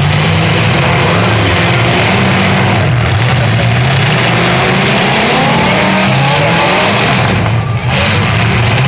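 Several car engines running loudly in an arena, revving so their pitch rises and falls, with a brief lull near the end.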